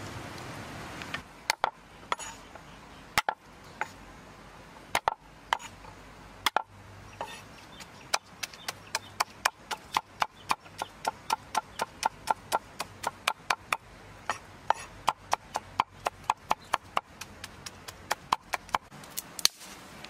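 Cleaver chopping garlic cloves on a thick round wooden chopping board: a few separate knocks at first, then a steady run of about three to four chops a second from about eight seconds in.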